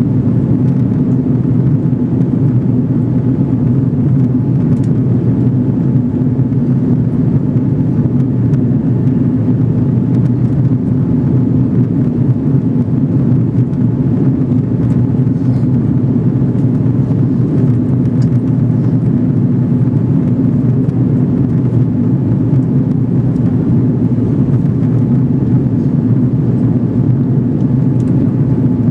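Airbus A330 airliner in flight: a steady low drone of engines and rushing air, unchanging throughout, with a few faint steady tones in it.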